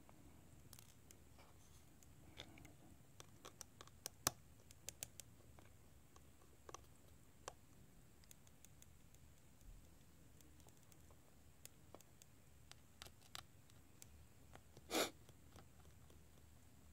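Faint, scattered clicks and ticks of a small Phillips screwdriver and tiny screws against the metal shield plate inside an iPhone 6 as the plate's screws are taken out, with one louder, slightly longer knock about fifteen seconds in.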